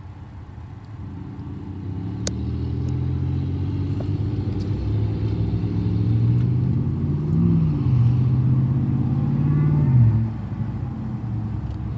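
Car engine and road noise heard from inside the cabin while driving at speed: the engine hum grows louder over the first few seconds, holds, and its pitch drops away about ten seconds in. A single sharp click a little over two seconds in.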